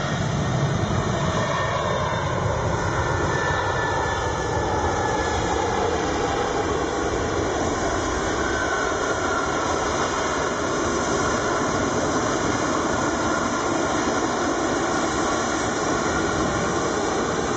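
Jet engines of an Airbus A330 airliner running as it rolls out after landing on a wet runway: a steady, loud rush with a faint whine that slowly shifts in pitch.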